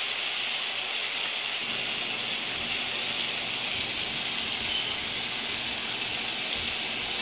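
Chicken pieces and mushrooms sizzling in olive oil and melted butter in a frying pan: a steady hiss.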